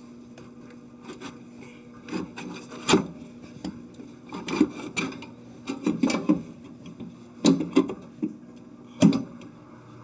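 Refrigerator condenser fan motor assembly being slid back into the compressor compartment: its bracket and shroud scrape and knock against the frame in irregular bursts, the sharpest knocks about three seconds in and near the end.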